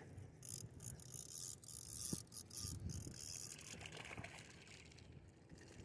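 Fishing reel being cranked to bring in a hooked fish: faint, irregular mechanical clicking and whirring.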